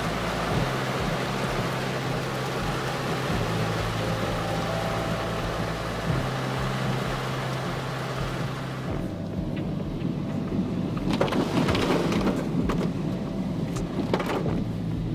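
Heavy rain pelting a car's windshield and roof, heard from inside the cabin over the car's steady low hum. About nine seconds in the steady rain hiss drops away, leaving irregular splashes and knocks.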